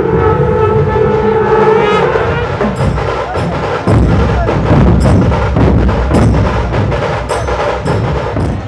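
Dhol-tasha troupe drumming: many large dhol barrel drums beaten with sticks in a loud, fast, driving rhythm, with sharp stick clicks over deep booms. It takes over from a steady held tone about two seconds in and grows heavier about four seconds in.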